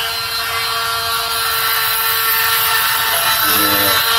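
Dremel Micro cordless rotary tool running at a steady high whine, its 60-grit sanding drum grinding excess solder off a gold bullet connector.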